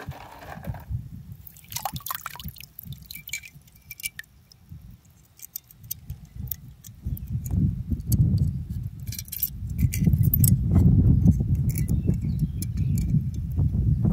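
Scattered light metallic clinks and taps, with a low rumble that builds about halfway through and then dominates.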